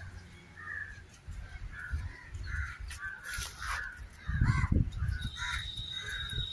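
Crows cawing over and over in short calls. About four and a half seconds in there are a few dull low thuds, and a thin high whistle sounds near the end.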